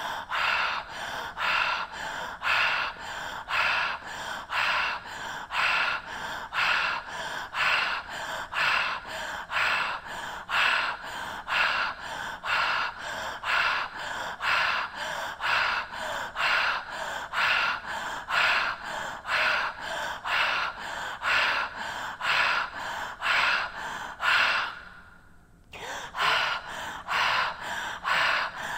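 A woman breathing deep and fast in and out through the mouth, in an activating breathwork exercise. The puffs come in an even rhythm of about two a second, with a pause of about a second near the end before the breathing picks up again.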